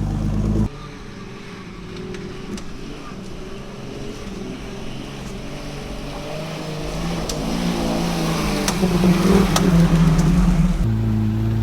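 Off-road vehicle engine working and revving, growing steadily louder, with wavering rises in pitch and a few sharp knocks near the loudest part.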